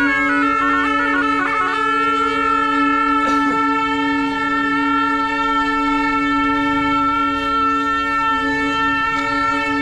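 Reed wind instruments playing a melody over a steady drone: a few quick pitch changes in the first two seconds, then long held notes.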